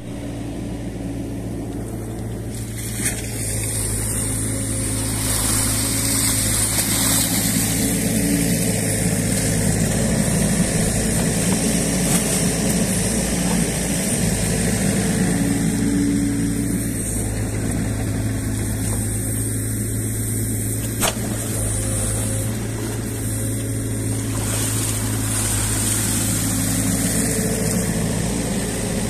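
New Holland Kobelco E50.2 mini excavator's diesel engine running steadily under load while its hydraulics work the bucket, digging silt out of a drainage ditch. The engine sound rises and falls a little with the work, getting louder about five seconds in, with a couple of sharp knocks from the bucket or arm.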